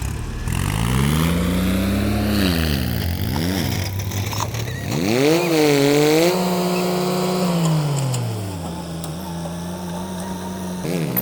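Diesel engine of a JCB 3DX backhoe loader revving up and down as it works. Its note rises about a second in, drops around three seconds, climbs again around five seconds and holds, then falls away near eight seconds.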